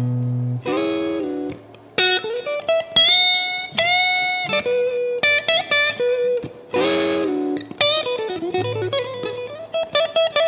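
Background music: an electric guitar playing a melodic line with held and bent notes.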